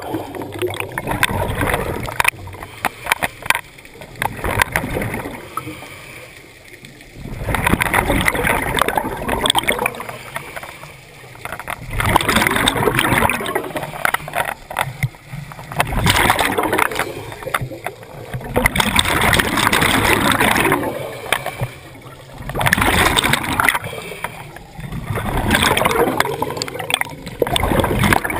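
Scuba diver breathing through a regulator underwater: a rush of exhaled bubbles about every three to four seconds, with quieter gaps between for the inhale.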